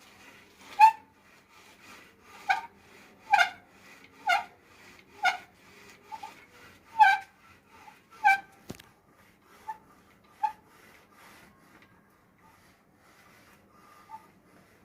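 Geared bicycle's handlebar squeaking: short squeaks at one pitch about once a second, loudest in the first eight seconds, then fewer and fainter. This is the handlebar noise fault that the bike has.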